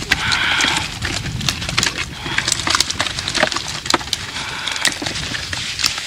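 Live crucian carp tipped from a wet keepnet into a plastic bucket: a short rush of water at the start, then many quick wet slaps and clicks as the fish flap against each other and the bucket.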